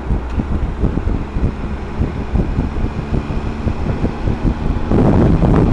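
Wind buffeting the microphone of a moving Triumph Tiger motorcycle, with the bike's engine running underneath. The wind noise grows louder near the end.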